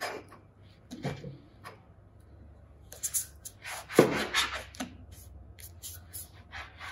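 Hands patting down soft scone dough on a silicone mat and pressing a round cutter through it: a few soft pats and rubs, the loudest a thump about four seconds in.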